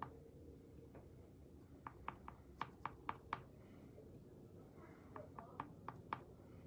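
Light taps of the butt end of a liner brush dotting white paint onto a painted door hanger, in two quick runs of about five to seven taps each, roughly four a second.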